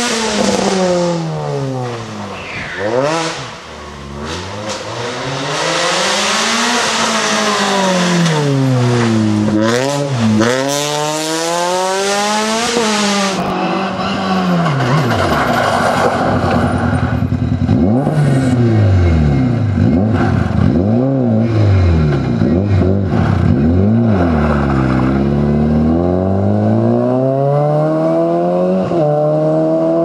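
Rally car engines at full throttle on a special stage, revving hard and climbing through the gears so the pitch rises and drops again and again with each shift. About 13 seconds in the sound cuts to a second car, an Opel Astra rally car, which revs and shifts the same way over tyre and road noise.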